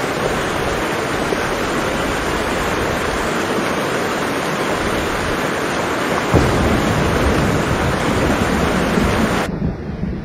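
Steady hiss of heavy rain, joined about six seconds in by a low rumble of thunder lasting a few seconds. Near the end the rain hiss cuts off suddenly, leaving a quieter low rumble.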